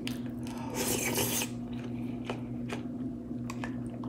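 A person eating rice porridge and crisp fried dried fish: small chewing and mouth clicks, with a short rasping noise about a second in. A steady low hum runs underneath.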